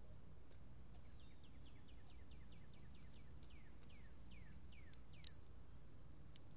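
A bird singing a run of about fifteen quick whistled notes, each sliding downward in pitch. The notes come more slowly and drop further toward the end, over a faint steady low rumble.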